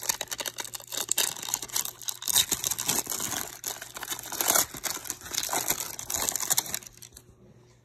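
Foil wrapper of a Collector's Choice baseball card pack being torn open and crinkled by hand: a dense crackling that dies away about seven seconds in.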